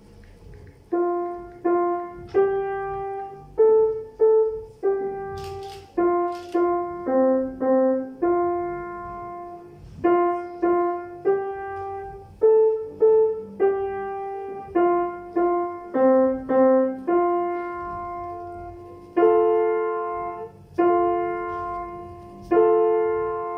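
Grand piano played live: a simple beginner piece, a melody in the middle register struck one note at a time, each note ringing and dying away. It starts about a second in, and near the end longer two-note chords are held.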